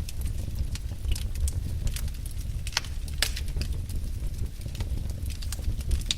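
Wood fire burning in a fireplace: a low steady rumble of flames with irregular crackles and sharp pops of burning logs, a louder pop about halfway through and another near the end.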